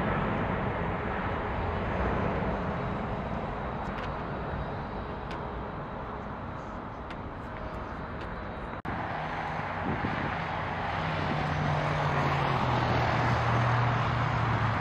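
Jet airliner engine noise, a steady rush as a twin-engine widebody climbs away after takeoff. About nine seconds in it cuts to steady jet noise from across the airfield, with a low hum falling slowly in pitch near the end.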